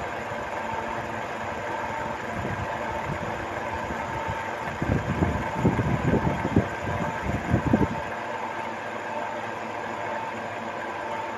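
Small battery-powered DC mini motor spinning a salvaged exhaust-fan blade, running at a steady speed with a constant whine. From about five to eight seconds in, irregular low rumbling knocks break in over it.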